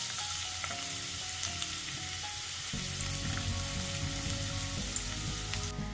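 Finely chopped garlic sizzling steadily in hot coconut oil in a frying pan.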